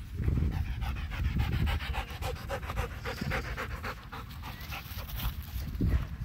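A dog panting hard close to the microphone, in a rapid, even rhythm, over a low rumble on the microphone.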